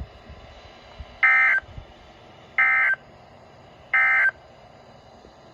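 Emergency Alert System end-of-message data bursts: three short, loud buzzy blasts of SAME digital tones, evenly spaced about a second and a half apart, marking the end of the alert.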